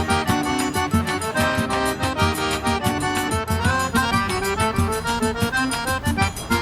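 Lively accordion-led festa junina music with a steady beat.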